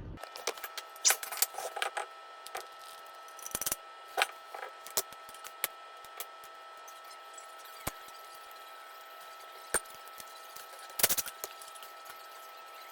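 Hand tools clicking and clinking against metal parts of a small engine being taken apart, in irregular sharp taps with a short cluster about eleven seconds in.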